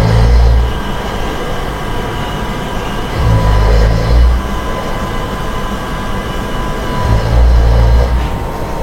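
Someone snoring in their sleep: three deep snores about four seconds apart, over a steady hum.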